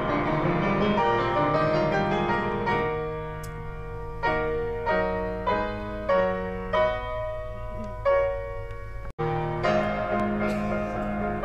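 Grand piano played live: a dense, flowing passage gives way to separate struck chords about two a second. About nine seconds in, the sound drops out for an instant where the recording cuts, and the playing picks up again.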